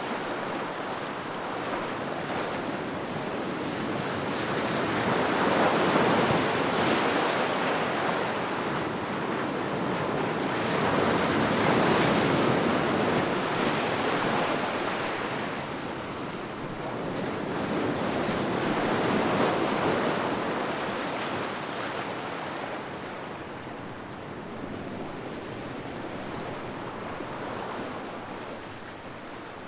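Sea waves breaking and washing up the shore, the surf swelling and easing in slow surges every six or seven seconds.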